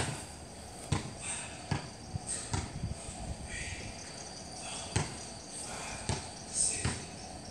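Irregular dull thumps and knocks of a body and feet moving on an exercise mat laid over a concrete floor during ab exercises, the loudest right at the start.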